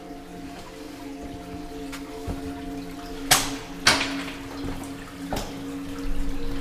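Slow held droning chords of background music, with a few sharp clicks echoing in a rock tunnel, the loudest two about three and a half and four seconds in.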